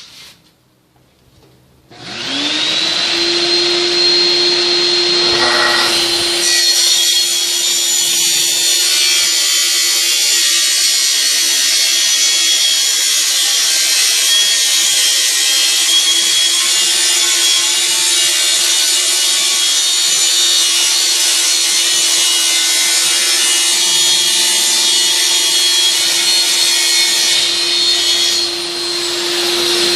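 Plunge circular saw starting up about two seconds in, its motor winding up to a steady whine, then cutting all the way through an MDF board along a guide rail from about six seconds until near the end, when the blade comes out of the cut and the saw runs free.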